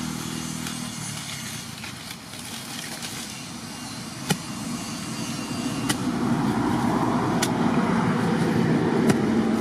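A motor vehicle engine running, growing louder in the second half as if coming closer. Sharp clicks about every one and a half seconds, from about four seconds in, as the steel digging blade chops into the hard soil and roots.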